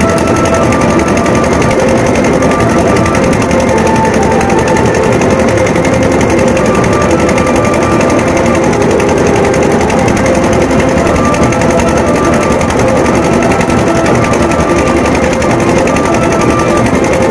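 Tasha drums beaten in a fast, continuous rattling roll, loud and distorted, over the din of a large crowd.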